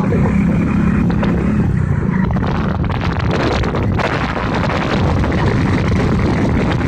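Motorcycle engines running steadily at road speed, with wind buffeting the microphone.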